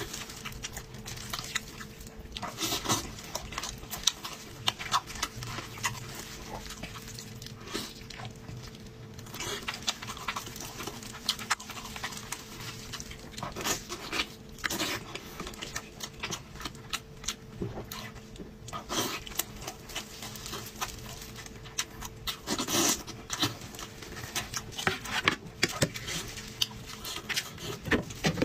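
Close-miked eating of braised sheep head meat: wet chewing, lip smacks and slurps in an irregular run of short sounds, with the rustle of plastic gloves tearing the meat.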